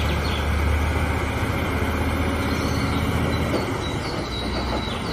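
Heavy truck diesel engine running with a steady low drone, pulling a loaded lowboy trailer, with a few faint high squeaks.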